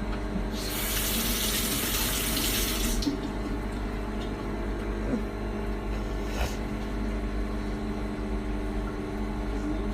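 Microwave oven running with a steady low hum as the toast heats a little longer. A rushing hiss lasts about two seconds near the start, and there is a single faint click about six and a half seconds in.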